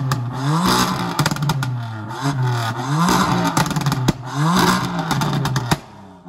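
BMW M3's stage 2+ tuned twin-turbo straight-six with a full aftermarket exhaust, revved three times, the pitch climbing and dropping each time. Near the end there is a run of exhaust crackles, and then it cuts off suddenly.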